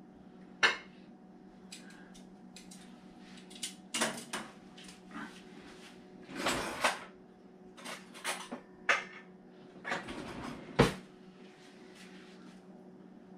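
Kitchen clatter: cabinet doors and drawers knocking open and shut, with plates and utensils clinking. A few sharp knocks, the loudest near the end, come between short spells of rustling clatter, over a steady low hum.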